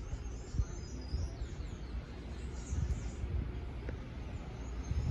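A few short, high bird chirps over a low rumble from an electric commuter train approaching in the distance.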